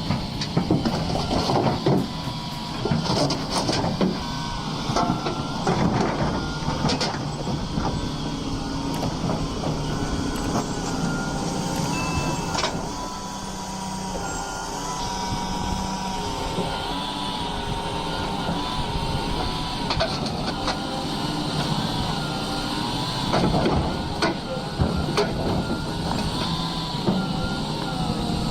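Heavy excavator working, its engine running under a wavering whine, with repeated metallic clanks and knocks that are thickest over the first several seconds and again near the end.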